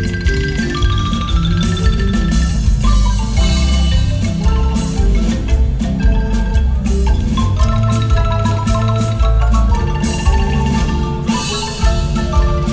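Marimba music: struck wooden bars playing a melody in the upper range over a line of low bass notes, at a steady full level throughout.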